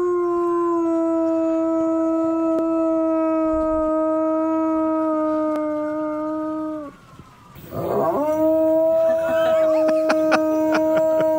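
Large dog howling in answer to a passing fire-truck siren, imitating it: one long steady howl that sags slightly in pitch and breaks off about seven seconds in, then a second howl that rises and holds.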